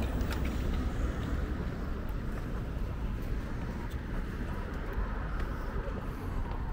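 Outdoor city street ambience: a steady low rumble, with a few faint clicks over it.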